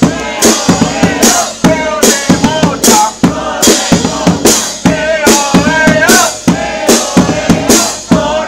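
A charanga brass band playing a lively tune: saxophone and trombone carry the melody over drums, with a strong drum-and-cymbal hit a little more often than once a second.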